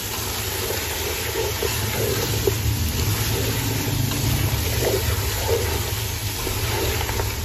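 Boiled beef pieces sizzling in oil in a steel pot as a wooden spoon stirs them, with scattered small scrapes and knocks of the spoon against the pot: the meat being fried again (bhuna) with spices.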